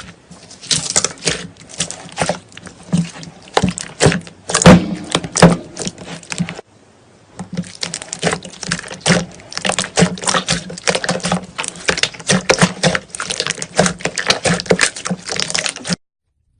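Slime being squished and pressed by hand, giving fast irregular wet clicks and pops. It breaks off briefly midway, then starts again and cuts off suddenly just before the end.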